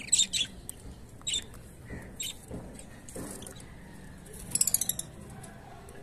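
Cockatiel chirping in short, high-pitched calls: a few single chirps, then a quick run of chirps near the end.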